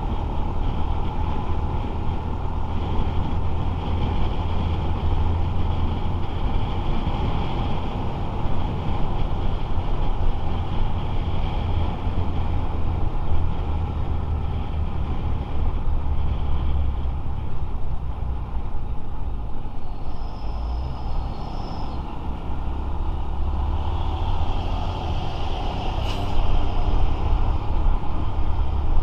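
Motorcycle being ridden through city traffic: steady engine and road noise with a heavy low rumble. A brief high tone sounds about two-thirds of the way through, followed shortly by a single sharp click.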